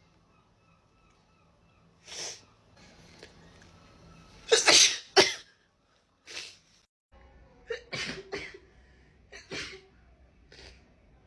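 A woman sneezing in a fit, about nine or ten sneezes in quick succession; the loudest two come close together about five seconds in.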